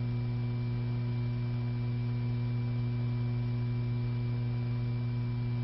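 Steady electrical hum with a few higher overtones over faint hiss, unchanging throughout: the background hum of the old recording.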